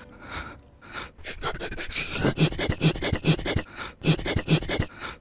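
A man panting and gasping close into a microphone: quick, sharp breaths, about three a second, getting denser from about two seconds in. It is an exaggerated imitation of the heavy breathing sounds added in dubbing to show emotion.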